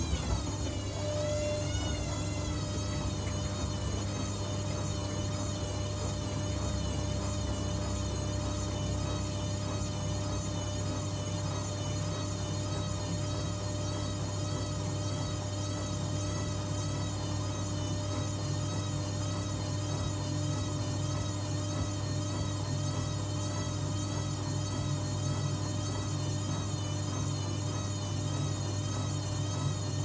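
Zanussi ZWF16070W1 front-loading washing machine spinning its drum: a motor whine that climbs in pitch over the first couple of seconds, then holds steady with a slight wavering over a low hum.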